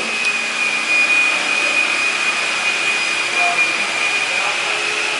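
A machine running steadily: a loud rushing air noise with a steady high whine on top.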